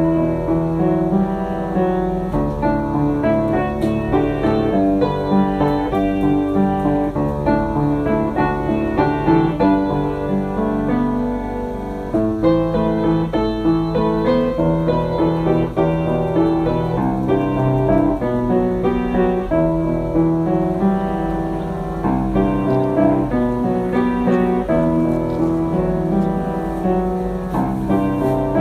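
Background piano music: a steady flow of chords and melody notes.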